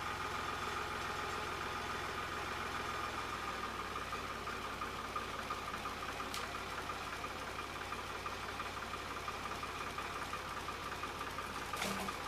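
Ford 3910 farm tractor's engine running steadily while its front loader pushes against a tree, with a steady high whine over the engine note.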